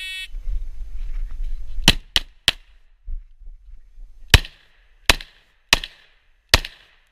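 Shot timer start beep, then seven pistol shots with a short echo: a quick string of three about two seconds in, then four more spaced roughly two-thirds of a second apart.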